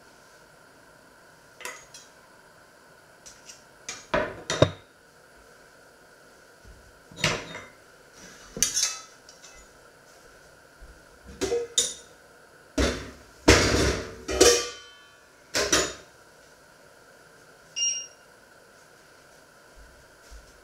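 A black steel frying pan and metal spatula being handled: a series of separate knocks, clatters and scrapes of metal, with a louder, longer clang that rings briefly about two thirds of the way through and a short high clink near the end.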